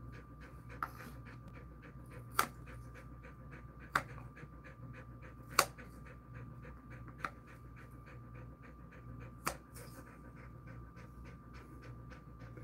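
A Jindo-mix dog panting rapidly and steadily with his mouth open. Six sharp clicks, spaced a second or two apart, stand out above the panting.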